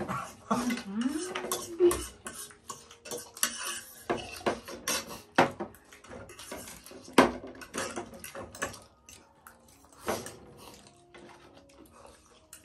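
Metal spoons clinking and scraping against steel bowls and ceramic plates as people eat, in many short irregular clicks. A short voiced hum rises and falls about a second in.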